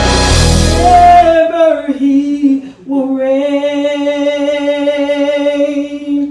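A woman singing unaccompanied, holding two long sustained notes with a short break between them. A piece of instrumental music stops about a second and a half in.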